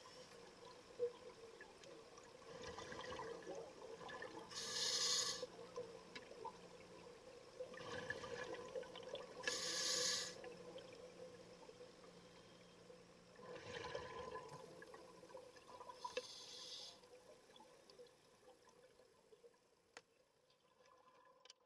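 Breathing through a scuba regulator underwater: about three breath cycles, each a hiss followed by a rush of bubbling, repeating about every five to six seconds, over a faint steady hum.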